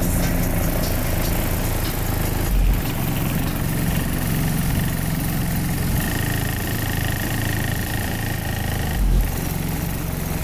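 Deep bass from two DC Audio XL 15-inch subwoofers driven by a CT Sounds 1400.1 amplifier, playing inside the vehicle and heard from outside it. Two heavier bass hits stand out, about two and a half seconds in and near the end.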